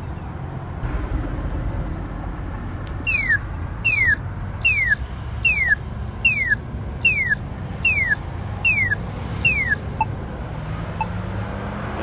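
Polara iNS accessible pedestrian signal push button sounding its walk indication: nine identical falling chirps, evenly spaced a little under a second apart, beginning about three seconds in, over steady traffic noise. Two faint ticks follow near the end.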